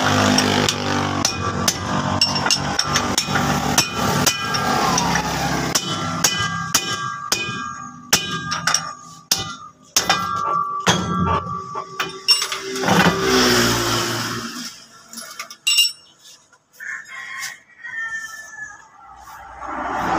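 Hammer blows on steel while knocking a truck's propeller shaft loose: a series of sharp metallic strikes that ring after each hit, quick and dense at first, then fewer and lighter over the last several seconds.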